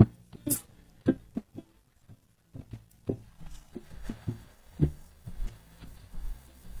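Background music of plucked guitar notes in an uneven rhythm. A sharp click at the start and a brief hiss about half a second in sound over it.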